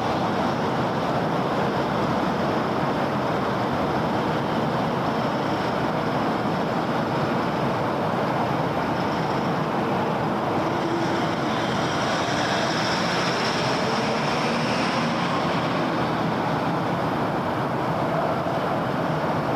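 City road traffic: a steady wash of passing cars and tyre noise, with the hiss swelling slightly about two-thirds of the way through.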